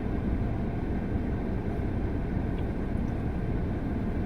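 Vehicle engine idling steadily with the heater running, heard from inside the parked vehicle's cabin.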